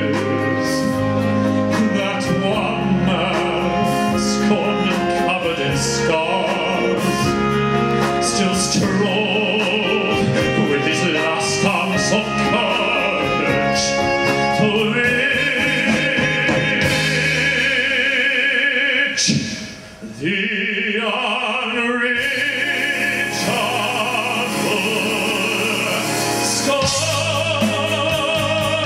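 A male singer sings in an operatic style with a wide vibrato, backed by a live band. The music drops away briefly about twenty seconds in, then the voice and band come back in.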